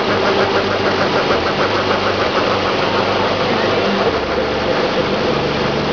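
Lifted pickup truck doing a burnout: its engine runs hard and steadily while the rear tyres spin on the pavement. A fast pulsing runs through the sound in the first half.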